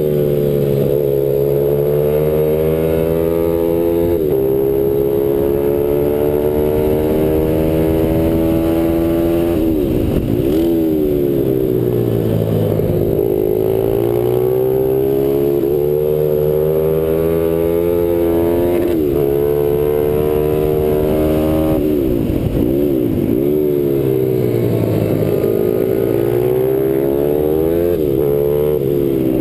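Onboard sound of a RAV SM7 pit bike's 160 cc single-cylinder four-stroke engine at racing pace: revs climb through the gears, fall away sharply under braking for corners several times, then pull up again.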